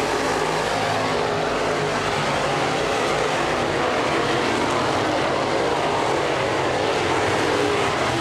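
Dirt crate late model race cars at racing speed, several V8 engines running at once and blending into one steady, loud drone.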